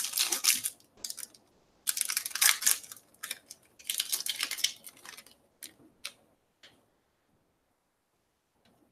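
Clear plastic wrapper of a baseball card pack crinkling in three bursts as the pack is opened and the cards are pulled out, then a few short light clicks as the cards are handled.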